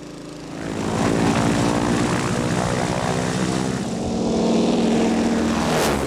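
Single-engine agricultural crop-spraying plane, its propeller engine running loud and steady as it rolls along a dirt airstrip. The sound builds up over the first second.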